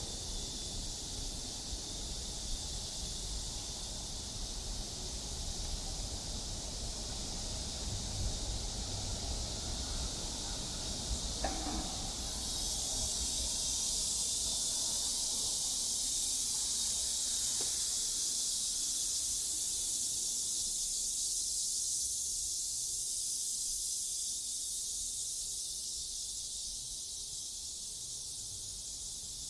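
A summer insect chorus of cicadas makes a steady, dense, high-pitched hiss that swells about twelve seconds in, over a low rumble of distant traffic in the first half.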